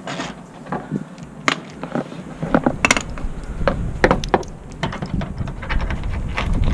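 Socket ratchet wrench clicking in short, irregular runs as a 10 mm bumper bolt is backed out.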